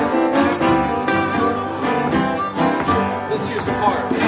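Live blues band playing, the acoustic guitar to the fore, with a harmonica coming in near the end.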